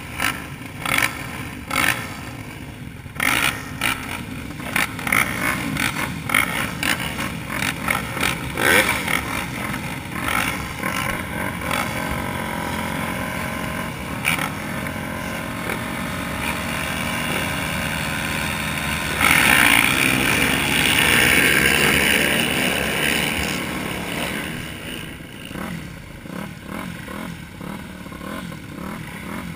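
A row of motocross bikes, the rider's Kawasaki KX 250 among them, idling at the starting line with many short, sharp throttle blips. About two-thirds of the way through, the engines rev up together in a loud, sustained surge for a few seconds before falling back to a lower running sound.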